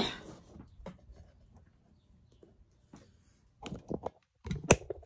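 Picture frame handled on a tabletop: a sharp snap at the start as its back stand is flicked, a few light scrapes, then a run of knocks and taps near the end as the frame is set upright.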